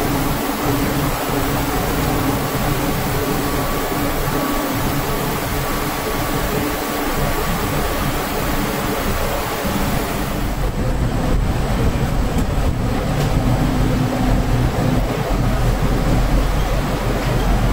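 Leather-processing machinery running: a steady mechanical hiss and hum from the roller machine and conveyor carrying the hides. About ten seconds in, the hiss falls away and a deeper hum takes over.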